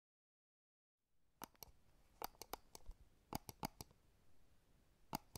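Faint, irregular sharp clicks over a low hiss, coming in small clusters of two to four, after about a second of dead silence.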